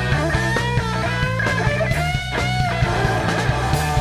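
Raw rock band recording: an electric guitar lead with held, sliding bent notes over a steady bass and drum beat.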